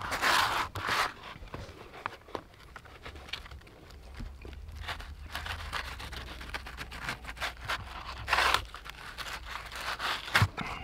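Fillet knife scraping and tearing as it separates a bass fillet from its skin against a cardboard mat, with crinkling of the cardboard underneath. Irregular scrapes and small clicks throughout, with louder strokes in the first second and again around eight seconds in.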